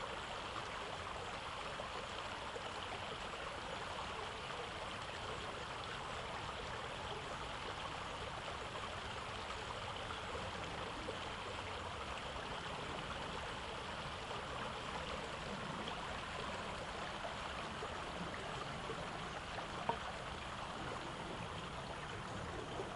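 Shallow stream flowing steadily across a concrete ford and past rocks: an even rush of running water.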